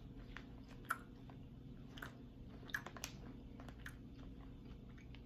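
A person chewing a soft, airy Starburst Airs gummy with the mouth closed: faint, irregular moist clicks and squishes.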